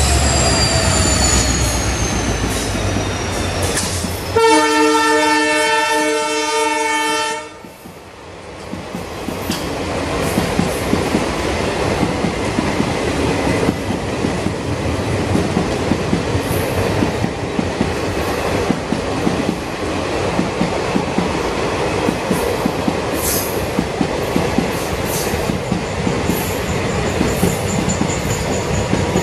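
WDP4D diesel locomotive passing at speed, its engine whine falling in pitch as it goes by; about four seconds in its horn sounds once for about three seconds. Then passenger coaches roll past, wheels clacking over the rail joints, with a thin high wheel squeal near the end.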